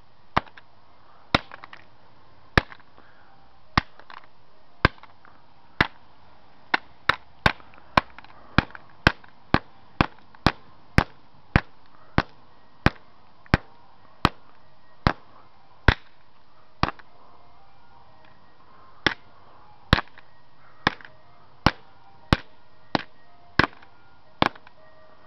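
An old LG flip phone being struck over and over: sharp blows about one a second, speeding up to about two a second in the middle, with a short pause about two-thirds of the way through.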